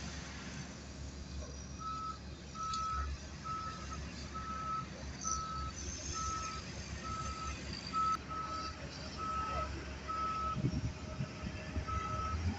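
Excavator travel alarm beeping at a steady single pitch, about one beep a second, starting about two seconds in, over the low running of the Komatsu PC200's diesel engine as the machine moves on its tracks.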